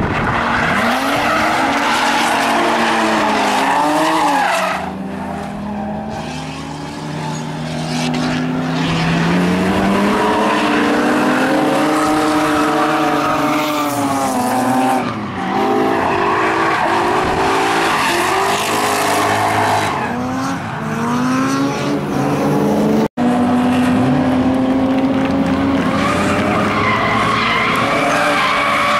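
Drift cars sliding through corners: engines revving up and down hard over a continuous screech of tyres skidding and squealing. The sound drops out for an instant about three quarters of the way through.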